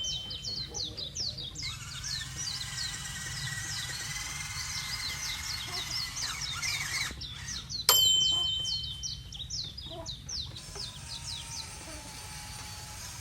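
Birds chirping rapidly, many short falling calls in a row, with a steady whine in the first half and a sudden bright ringing hit about eight seconds in.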